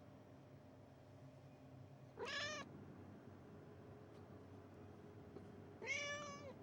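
Persian cat meowing twice, each meow short and arched in pitch, rising then falling; the second comes near the end, a little longer than the first.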